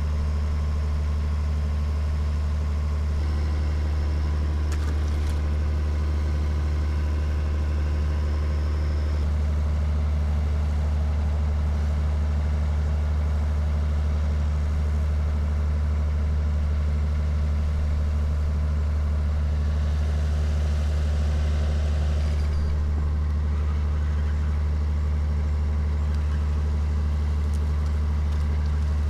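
Steady low hum of an idling engine or motor, unchanging in pitch. About twenty seconds in, a short rush of noise passes over it.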